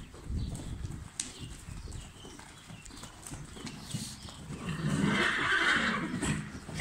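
Hoofbeats of a ridden horse moving through deep sand, heard as a run of dull low thuds. About four and a half seconds in, a louder rushing, noisy sound lasts nearly two seconds over the hoofbeats.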